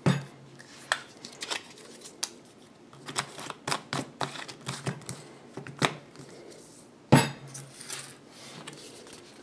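A metal spoon and spice containers clinking and knocking as they are handled and set down on a tabletop, with sharper knocks at the start and about seven seconds in.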